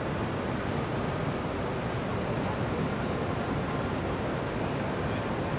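Steady rushing of water pouring over a river weir.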